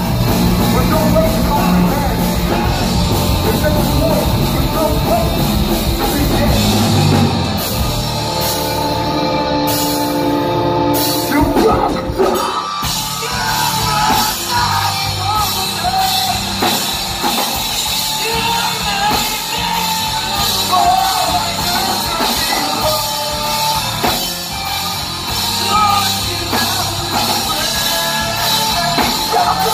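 Heavy rock band playing live: distorted electric guitars, bass and drum kit, with a vocalist singing and yelling. About twelve seconds in, held chords give way to a new, busier section.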